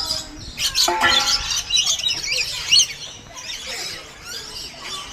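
Many aviary birds chirping and squeaking together, a dense overlapping chorus of short high calls, with one louder, lower-pitched call about a second in.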